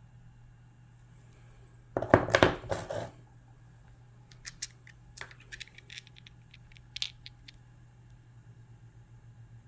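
Pieces of cut rock being handled: a loud scrape lasting about a second, then a quick run of light clicks and knocks of stone on a hard surface, with a faint steady low hum underneath.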